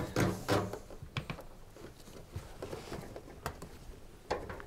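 Faint handling noises as a corrugated plastic drain hose is worked by hand onto a dishwasher drain pump's outlet pipe: light rustling with a few sharp plastic clicks.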